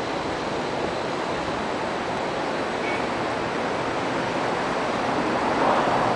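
Steady rushing noise of a city street, swelling briefly near the end.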